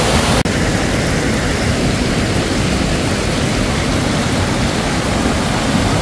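Water rushing over rocks: a small waterfall pouring into a rock hollow and shallow rapids, making a steady rush of white water with a brief dip about half a second in.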